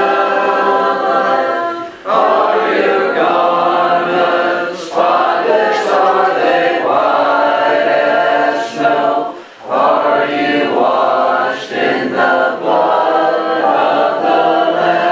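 Congregation singing a hymn in unaccompanied parts, with no instruments. Sustained notes run in phrases separated by brief breath pauses, about two to three seconds apart.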